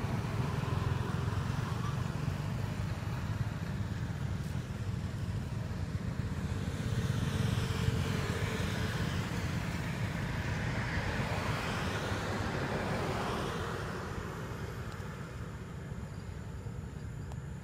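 Road traffic: motorbikes and cars passing on the road, over a steady low rumble, with one vehicle swelling up and fading away in the middle of the stretch.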